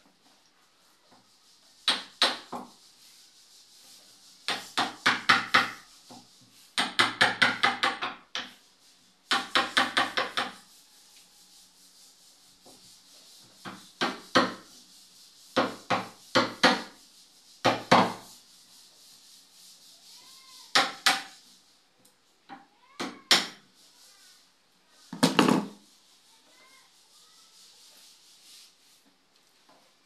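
Hammer driving a wood chisel into the edge of a wooden door, cutting the mortise for a lockset's latch: runs of quick sharp taps in bursts, with short pauses between.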